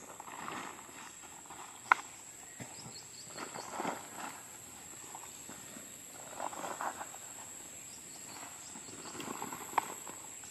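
Rustling and crumbling of soil and roots handled by hand over a sack, with a sharp click about two seconds in and another near the end. A steady high insect trill, typical of crickets, sounds in the background.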